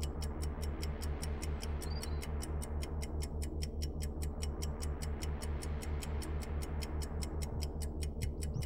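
Film score: a fast, evenly spaced clock-like ticking, about four or five ticks a second, over a steady low pulsing drone.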